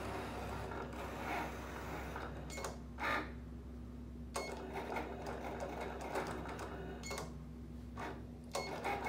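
Cricut Explore Air 2 cutting machine running a test cut: its motors whir as the blade carriage and mat rollers move, in short runs with brief pauses between them, about three seconds in and again about seven seconds in.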